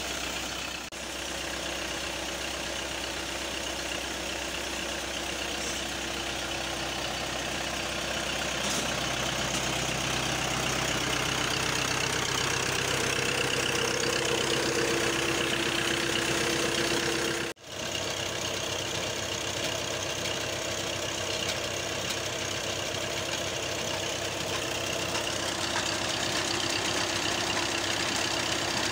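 Water gushing from two tube-well discharge pipes into a concrete channel, over the steady running of a Massey Ferguson tractor engine that drives both pumps through a shaft and belts. The sound briefly cuts out twice, about a second in and again past halfway.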